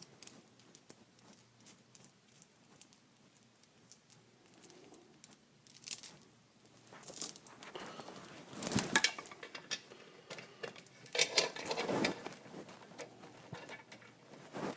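Metal clinking and rattling from handling steel chain and tools: a few light clicks at first, then bursts of clattering in the second half, the loudest about nine seconds in.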